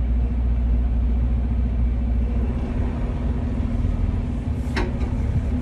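Semi truck's diesel engine running steadily at low speed, a constant low rumble heard from inside the cab. A single sharp click about five seconds in.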